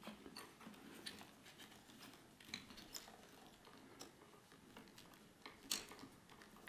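Faint, scattered clicks and light rustling of plastic wiring connectors and harness being handled as a 2-pin connector is fitted onto its mounting stay, with one sharper click near the end.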